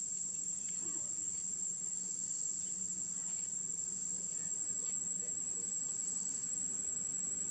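Insects making a steady, high-pitched drone.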